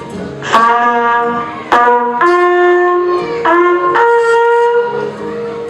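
A horn fanfare of about five held notes, one after another, heralding the king's entrance, with the last note held and then fading.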